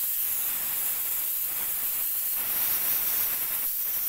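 Spray gun hissing steadily as it sprays adhesive for gluing upholstery foam to a plywood headboard frame.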